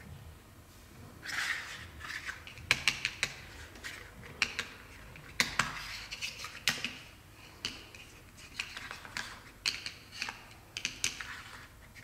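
Irregular light plastic clicks and taps as Barbie dolls and their clear plastic stands are handled and moved on a wooden tabletop.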